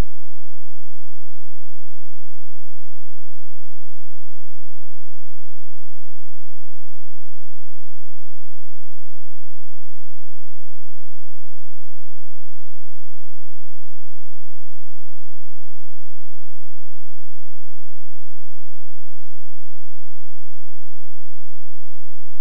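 Steady electrical mains hum, a low tone with several fainter steady tones above it, with no speech.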